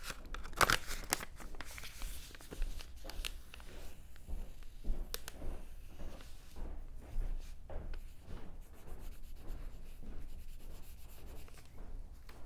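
Paper being handled: irregular rustling, crinkling and light scraping, loudest in a burst under a second in.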